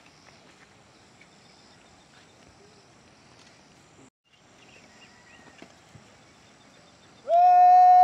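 Faint outdoor background, then near the end a loud, drawn-out shouted parade drill command to a guard line: one held note that slides up into a steady pitch.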